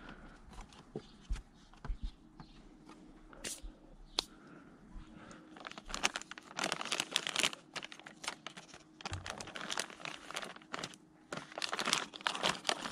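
Plastic packaging crinkling and rustling as it is handled, in two main bursts, with scattered clicks and knocks from hands on the plastic engine cover earlier on.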